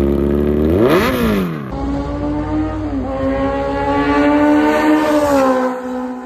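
Kawasaki Z900's inline-four through an SC Project full-system exhaust, idling, then revved once in a quick rise and fall. After a cut, a motorcycle engine held at steady high revs, its pitch sagging slightly near the end.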